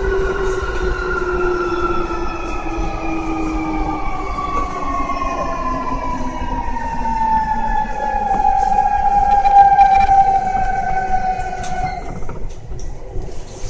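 Keio 1000 series train, renewed car, running: the VVVF inverter and traction motor whine, several tones together, falls steadily in pitch as the train slows, over wheel and rail rumble. The whine drops out about twelve seconds in.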